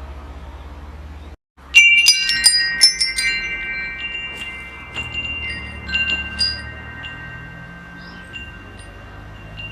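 Wind chimes struck in a quick flurry about two seconds in, with a few more light strikes a few seconds later, several clear tones ringing on and slowly fading. A low steady rumble runs underneath, broken by a brief dropout just before the chimes start.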